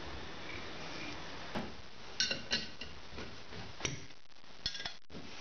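Sharp metal clinks of a combination spanner and steel bolts against a steel plate while bolts are tightened by hand. Several short ringing clinks start about a second and a half in, and a couple more come near the end.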